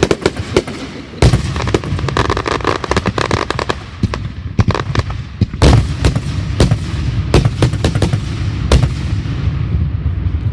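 Fireworks going off: a dense run of irregular bangs and crackles, with louder reports about a second in, near the six-second mark and near the nine-second mark.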